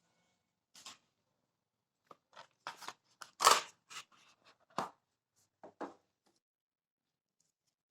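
Phone box and packaging being handled: a run of short rustles and clicks, the loudest about three and a half seconds in.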